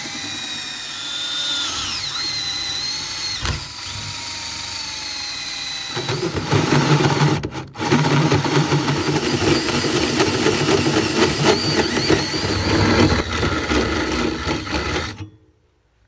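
Electric drill with a 1/4-inch bit: the motor whines steadily with shifting pitch, then for about nine seconds the bit cuts into the work with a louder, rougher grinding. It stops abruptly about a second before the end.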